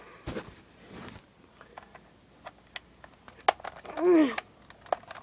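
Light plastic clicks and rustling as foam-dart ammo clips are handled and pushed into the side of a cheap toy dart blaster, with one sharper click about three and a half seconds in. A short hum falling in pitch comes from the person about four seconds in.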